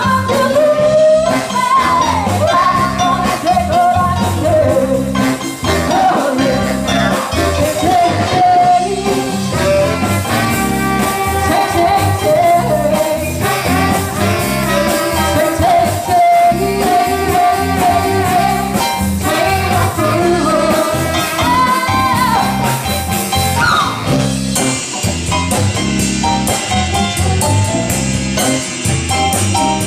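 Live soul band playing: a woman sings lead over electric bass, drums, guitar and keyboards, with a horn section of saxophone, trumpet and trombone.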